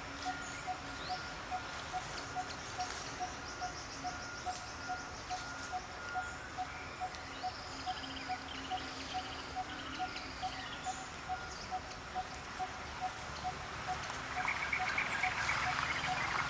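Forest ambience: a steady pulsing animal call repeating about two and a half times a second, with birds chirping over it. About two seconds before the end, a louder rough, noisy sound joins in.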